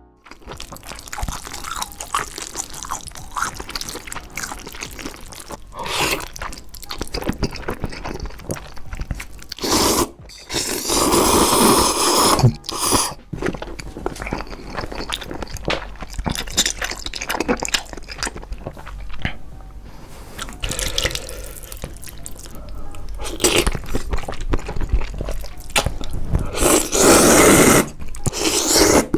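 A person eating spicy fire noodles with sausages: wet chewing and mouth clicks throughout, with a long loud slurp about ten seconds in and another near the end as noodles are slurped up.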